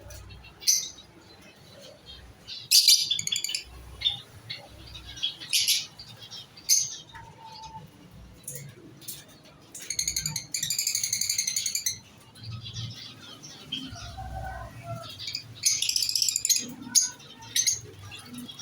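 Small cage birds in an aviary chirping in short, high-pitched bursts, with one longer buzzing call near the middle and a cluster of calls near the end.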